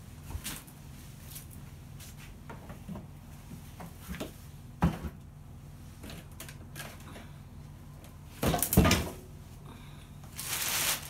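Scattered light knocks and clatter of things being handled, with a sharp knock about five seconds in and a louder cluster of thuds near nine seconds, then a burst of rustling just before the end.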